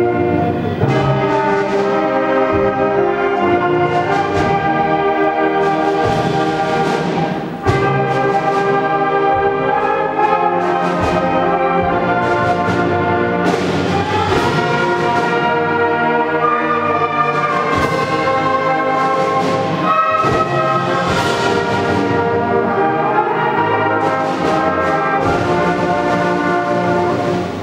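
Middle school concert band playing a slow film-theme arrangement, brass leading with held chords over low brass and sousaphones. Phrases swell and change chord every second or two, with a brief breath between phrases about seven seconds in.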